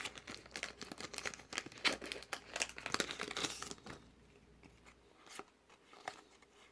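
Foil wrapper of a Pokémon card booster pack being torn open and crinkled by hand, a dense crackling that stops about four seconds in, leaving only a few faint ticks.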